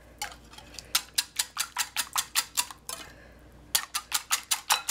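Wire balloon whisk beating a thin liquid of yeast milk, egg and melted butter in a glass bowl, the wires clicking against the glass about five times a second, with a short pause about three seconds in.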